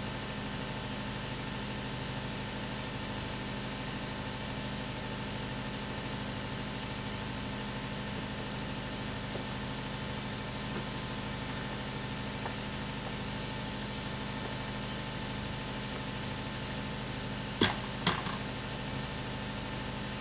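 A steady low machine hum, broken near the end by two sharp knocks about half a second apart.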